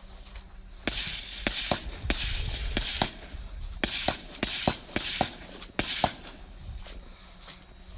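A rapid string of about fifteen gunshots over some five seconds, several followed by the brief ring of a hit steel target.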